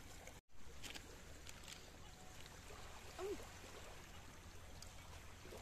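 Faint steady wash of small waves lapping at the shore, with a few light clicks of plates and cutlery and a brief hum of a voice a little past the middle. The sound drops out for an instant near the start.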